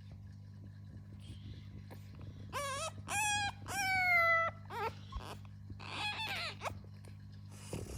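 French bulldog puppy whining in a run of high cries starting about two and a half seconds in, the longer ones falling in pitch, then a shorter whine about six seconds in. A steady low hum runs underneath.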